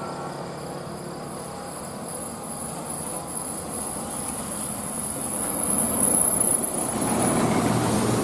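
A road vehicle approaching and passing: a rushing engine-and-tyre noise that builds to its loudest about six seconds in. A thin, steady, high-pitched whine sits above it until shortly before the end.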